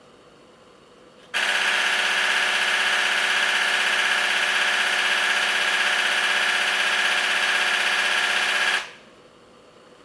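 Canon EOS-1D X Mark III shutter firing a continuous burst at 20 frames per second, a rapid, even machine-gun clatter that starts abruptly about a second in and stops sharply about seven and a half seconds later.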